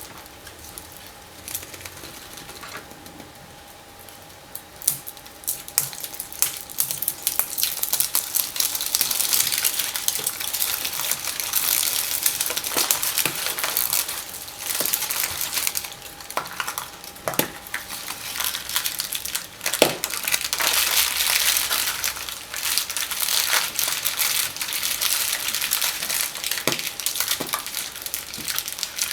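Close-up crinkling and crackling of foil candy wrappers being unwrapped from chocolate eggs, with scattered sharp clicks and taps. It starts sparse and quiet and becomes dense from about six seconds in.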